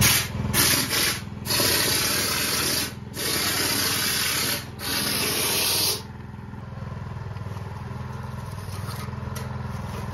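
Toolcrete hopper wall sprayer blasting plaster onto a wall with loud hissing bursts of compressed air, about five in the first six seconds with short breaks between them, over the steady hum of the air compressor that feeds it. After the last burst only the compressor hum goes on.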